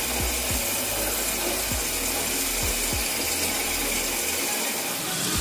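Bathroom tap running steadily into a sink, with the scrubbing of a toothbrush as teeth are brushed.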